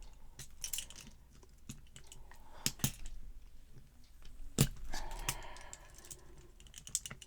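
Small metal tools clicking and knocking against a TRIMAX padlock as the padlock's retaining clip is pried at. A louder knock comes about four and a half seconds in, followed by about a second of metal scraping.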